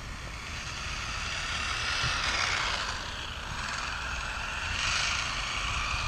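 Small RC car's brushless motor and 3D-printed drivetrain whining as it drives past, swelling louder twice, about two seconds in and again near five seconds, with its printed differential already damaged. Wind rumbles on the microphone.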